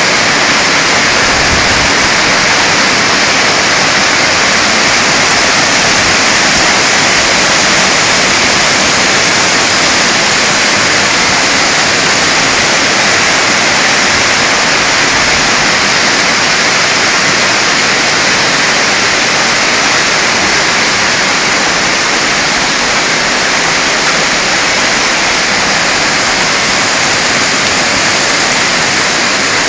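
Heavy hailstorm with rain: a dense, steady rush of hailstones and rain pelting down, loud and unbroken.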